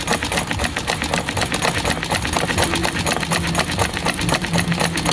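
Royal household sewing machine stitching fabric, worked by hand rather than by its electric motor: rapid, even clicking of the needle and stitch mechanism.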